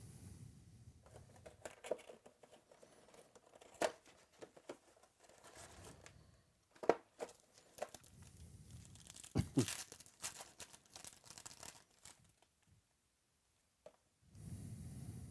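Trading-card packaging for a box of 2017 Certified football cards being torn open and crinkled by hand: the plastic wrap and foil packs rustle, with sharp crackles now and then and a brief pause near the end.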